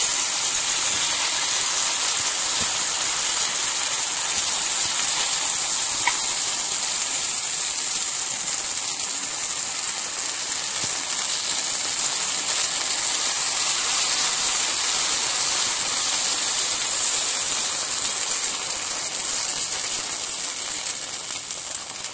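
Sooji (semolina) dosa batter sizzling in oil on a hot flat tawa as it is spread with a ladle, a steady high hiss that eases a little near the end.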